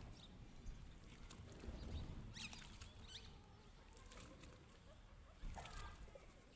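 Faint farmyard ambience: a few short bird chirps and scattered light clicks and rustles.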